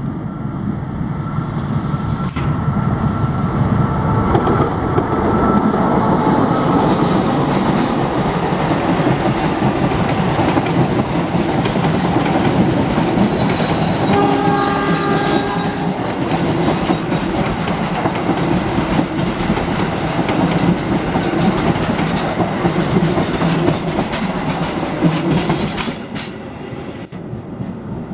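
Passenger train hauled by a CC 206 diesel-electric locomotive passing close by: the locomotive's engine at first, then a long, steady run of coach wheels on the rails. A short horn sound comes about halfway through, and the noise drops as the last car goes by near the end.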